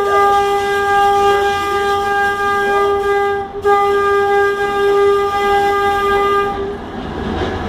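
Tram horn sounding one long steady note, broken off briefly about halfway and then held again until it stops near the end, followed by the tram's running noise.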